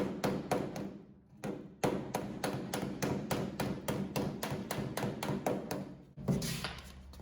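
Small flat hammer tapping dented auto body sheet metal against a second hammer held behind as a dolly: quick, even strikes about four a second, with a short pause about a second in. The strikes stop about six seconds in with one louder knock.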